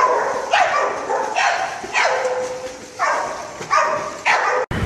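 A dog barking repeatedly, about seven short calls that each drop in pitch. It cuts off abruptly just before the end.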